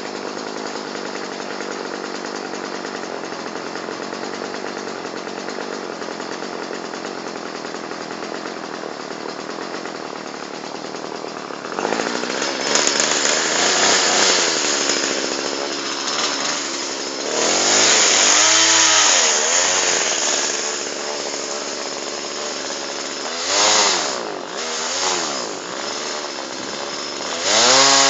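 Two-stroke McCulloch ("Mac") chainsaw running steadily. About twelve seconds in it opens up louder and cuts wood, its pitch rising and falling several times as the engine revs up and drops back under load.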